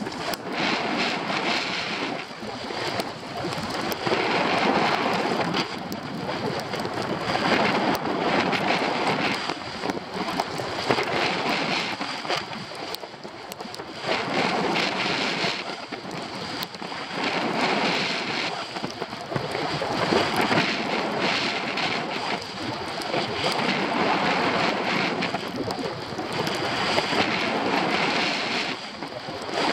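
Skis hissing and scraping over packed snow on a downhill run, swelling and easing with each turn every few seconds, with wind buffeting the microphone.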